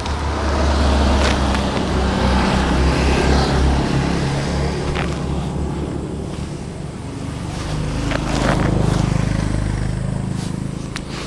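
Honda CRF150L's single-cylinder four-stroke engine running while riding. The engine note is strongest in the first few seconds, eases off around seven seconds in, then builds again about eight seconds in.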